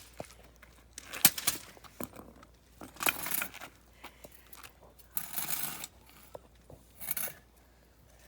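A sledgehammer striking a bicycle's metal frame and parts: a sharp, loud hit about a second in, then several more crashes with metal rattling and clattering.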